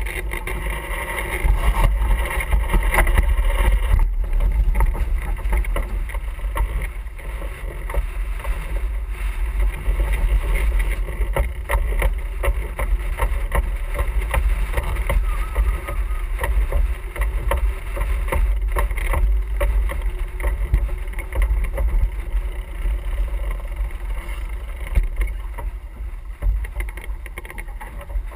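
Wind buffeting the microphone on a sailing yacht under way, a heavy uneven rumble, with the rush and slap of water along the hull and irregular short knocks.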